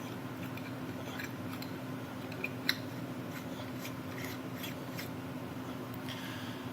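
Small clicks and scrapes of 30-amp fuses being handled and pushed into the fuse box's clips, with two sharper clicks a little past halfway, over a steady low hum.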